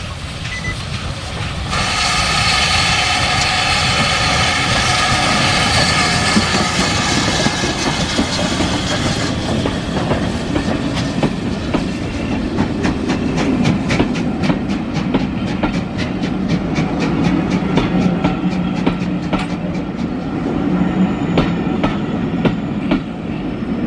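Steam locomotive whistle blown in one long steady note for about seven seconds as the train approaches. Then the engine and its coaches pass close by, with a low rumble and a regular clickety-clack of wheels over the rail joints.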